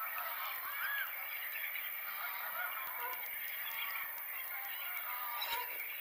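A large flock of waterbirds calling continuously: a dense chorus of many overlapping calls with no pause.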